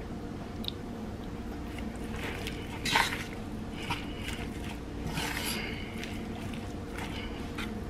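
A fork tossing shredded lettuce in a creamy dressing in a bowl: soft wet squishing and rustling, with the fork scraping against the bowl, loudest about three seconds in and again around five seconds.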